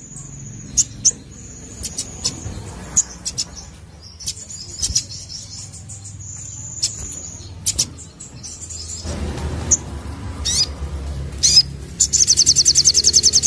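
Crimson sunbird singing: sharp high chirps and thin, high trills, breaking into a fast, loud run of rapid repeated notes near the end.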